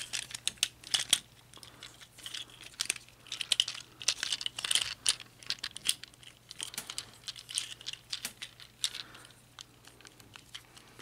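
Plastic parts of a Transformers action figure clicking and rattling as it is handled and transformed, many small irregular clicks with some handling rustle.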